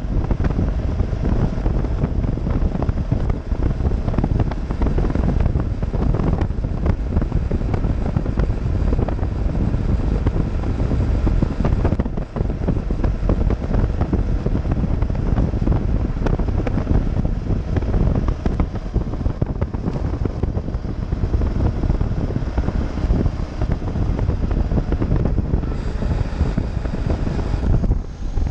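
Wind buffeting the microphone on a BMW motorcycle cruising at road speed, a steady rumble that buries the engine and tyre noise underneath.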